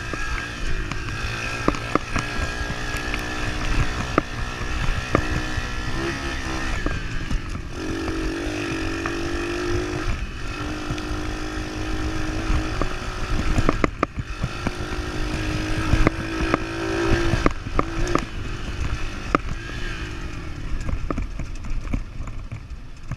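A 110cc pit bike's single-cylinder four-stroke engine being ridden, its pitch rising and falling several times as the throttle opens and closes, over a low wind rumble on the microphone with scattered sharp knocks.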